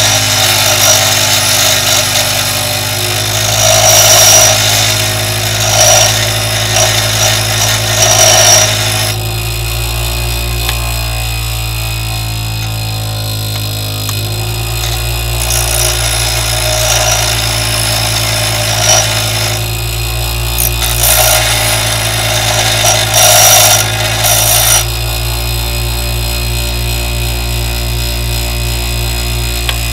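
Bench grinder motor running with a steady hum while a steel spade drill bit is pressed against the grinding wheel to sharpen its cutting edges. The grinding comes in bouts: a long one at the start, a few short touches in the middle and another long one near the end, after which the wheel spins on alone.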